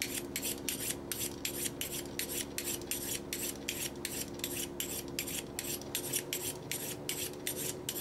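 Pocket knife blade drawn quickly along a diamond sharpening steel, a rasping scrape repeated about three or four strokes a second.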